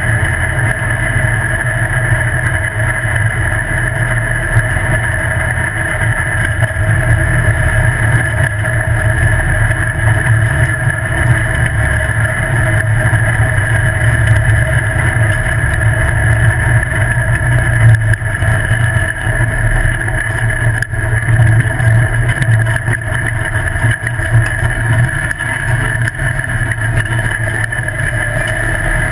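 Off-road buggy engine running loudly and fairly evenly at speed, heard up close from a camera mounted on the buggy's frame beside the engine.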